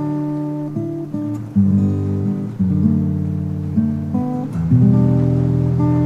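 Background music: sustained chords on a plucked string instrument, changing about once a second.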